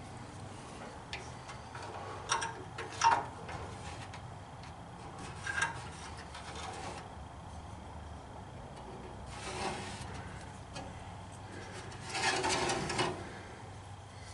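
Short strokes of a marking tool scraping on the rusty underside of the truck's steel floor pan as a cut line is drawn: a few brief scrapes, then a longer one near the end.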